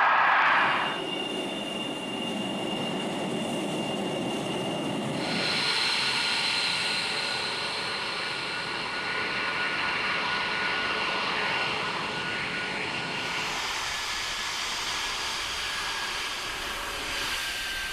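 Twin Pratt & Whitney F119 turbofan engines of an F-22 Raptor running on the ground: a steady jet rush with high whistling tones. The sound shifts abruptly about a second in, about five seconds in, and again near thirteen seconds.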